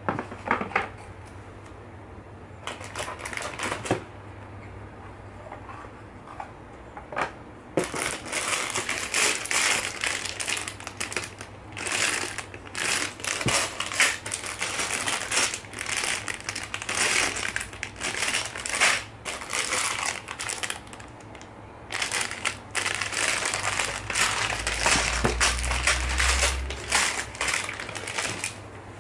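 Clear plastic bags packed with small white LEGO bricks being handled, the plastic crinkling and the bricks rattling inside, after a few light knocks of cardboard box trays being set down. The crinkling starts about a quarter of the way in, pauses briefly, then picks up again.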